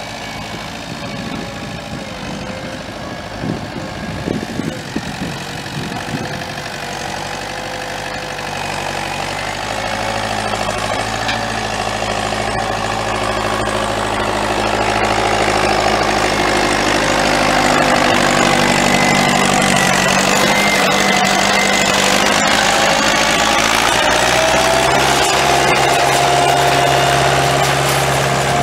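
Fiat tractor's diesel engine running steadily as it pulls a seeder and tyre drag harrows, growing louder about halfway through as it comes close.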